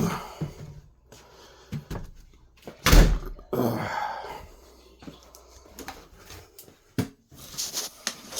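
A door being handled with a few knocks and thuds, the heaviest about three seconds in and another sharp knock near the end, with quieter shuffling between.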